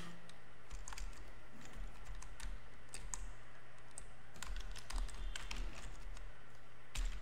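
Typing on a computer keyboard: irregular short runs of keystroke clicks with pauses between them, over a faint steady low hum.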